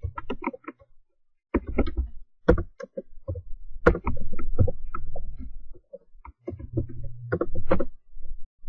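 Computer keyboard being typed on, irregular runs of key clicks with short pauses between them.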